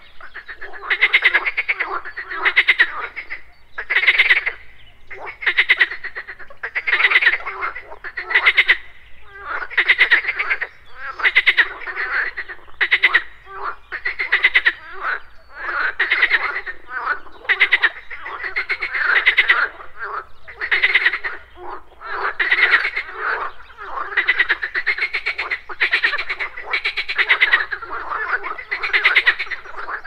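A chorus of frogs croaking at a pond: overlapping rattling croaks, each under a second long, repeating about once or twice a second without a break.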